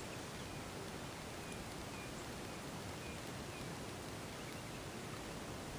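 Steady outdoor background noise, an even hiss, with a few faint high chirps in the first half.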